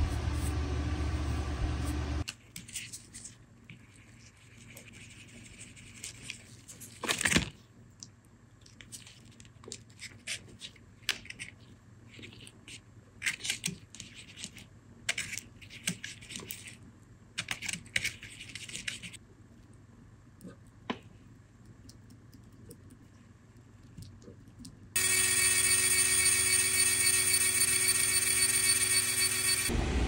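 A machine spindle runs steadily and stops about two seconds in. Then come scattered light clicks and taps of handwork. About 25 seconds in, a router spindle machining the wooden cue on a cue lathe takes over: a steady, loud, high-pitched whine with several pitches.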